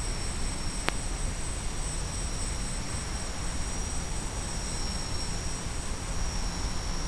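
Quadcopter motors and propellers running steadily in low flight: an even rushing noise with a thin, steady high whine. A single sharp click about a second in.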